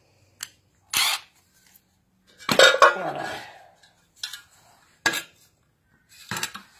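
A handful of separate metallic clinks and clatters from steel sockets and the mower's steel blade disc being handled and set down on concrete, the loudest about two and a half seconds in.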